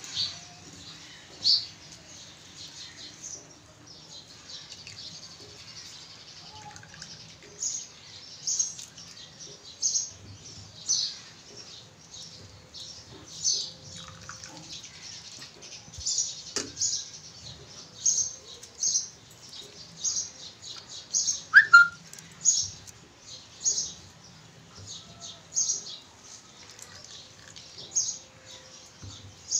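Small birds chirping in short, high chirps about once a second, with one louder rising-and-falling call a little past two-thirds of the way through. A single sharp click comes just past the middle.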